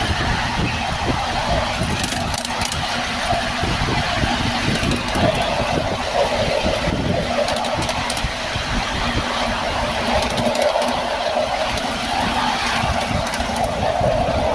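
Steady running noise of a ride-on miniature railway train moving along the track, with a low, uneven rumble underneath.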